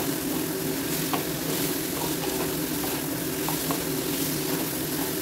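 Soya chunks and potatoes sizzling in oil and spice masala in a nonstick kadai, stirred with a wooden spatula that scrapes and taps the pan a few times. The masala is being dry-fried (kosha) with the soya and potatoes.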